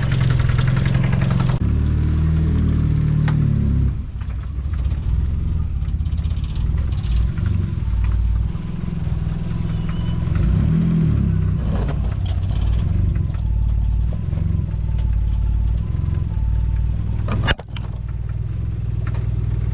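Mazda Miata's four-cylinder engine idling cold, no longer misfiring after a cracked coil pack was replaced. It has no idle air control valve, so it won't run smoothly until it warms up.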